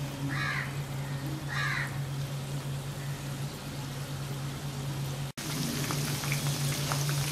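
Chicken pieces deep-frying in hot oil: a steady sizzle with fine crackles begins after a cut about five seconds in. Before that there is a steady low hum and two short, high, curved calls about a second apart.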